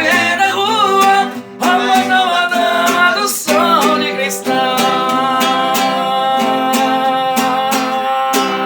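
A man singing long held notes with vibrato over a strummed acoustic guitar; the last note is held for about five seconds before the voice drops away near the end.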